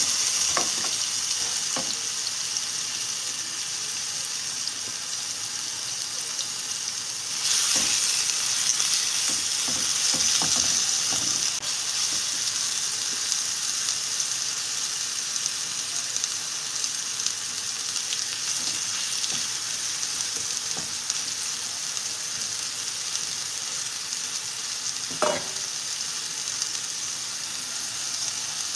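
Chicken tenderloins sizzling steadily as they fry in hot olive oil in a skillet, the sizzle swelling for a few seconds about seven seconds in as more pieces go into the pan. Occasional light clicks of tongs against the pan.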